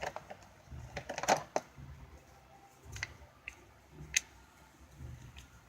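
Scattered clicks and light knocks of a cardboard box and its packaging being handled while a charger is taken out, with a cluster of clicks about a second in and a sharp click about four seconds in.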